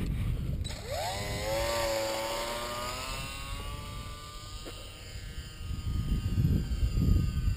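Electric motor and propeller of a micro RC Carbon Cub fitted with a 3000Kv brushless motor: a whine that rises sharply about a second in as it throttles up for launch, then holds and slowly fades as the plane flies off. Wind rumbles on the microphone, louder near the end.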